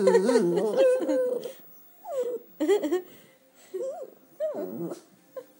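Small long-haired dog moaning in a long, wavering, whining call, then about five shorter moans with pauses between them.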